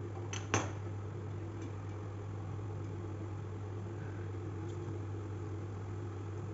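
Steady low hum with two sharp metallic clicks about half a second in, the second louder: a knock against a steel kadai of frying oil.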